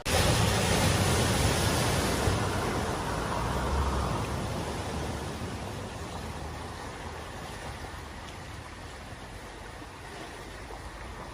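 A vehicle driving through a flooded ford: a sudden rushing wash of water over a low engine rumble, loudest for the first few seconds and then slowly fading away.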